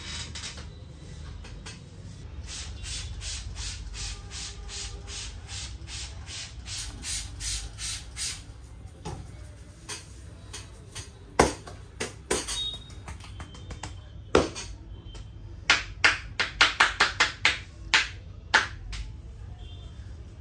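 Hand strokes of a head massage, repeating evenly about three a second, then several sharp slaps of the hands on the head, with a quick run of them near the end, over a low steady background hum.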